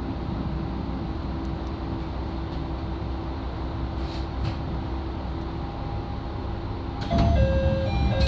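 Isumi 350 diesel railcar running along the line, a steady low rumble heard from inside the car. About seven seconds in it grows louder and a few steady tones set in.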